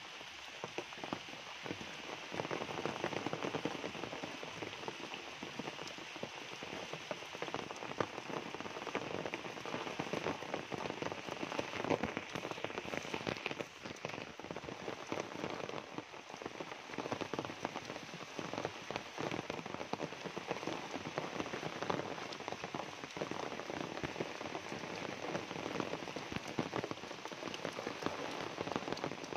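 Steady tropical rain falling on foliage and on a flooded dirt path, a dense, even hiss of countless drops splashing into the puddled water.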